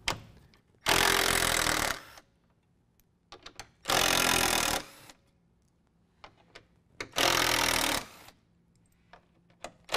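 Cordless Milwaukee driver with a 10 mm socket spinning out the grille's retaining screws in three bursts of about a second each, with light clicks of the screws and socket being handled in between.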